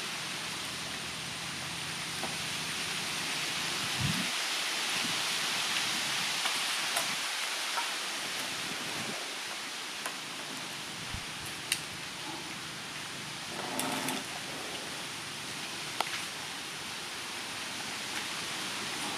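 Steady hiss of background noise, with a few light clicks and knocks of plastic PVC pipe parts being handled and fitted together.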